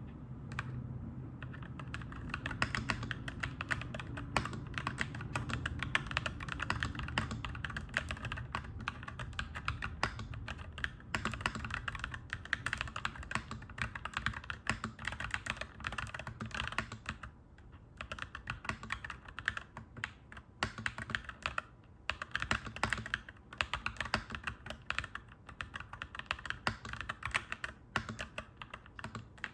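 Mechanical keyboard being typed on, a continuous stream of clacky keystrokes with a couple of short pauses. A low background rumble sits under the typing for the first ten seconds or so, then fades.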